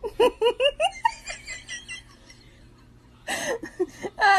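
A person laughing in quick high-pitched bursts, about five a second, trailing off after a second or two. Laughter breaks out again near the end.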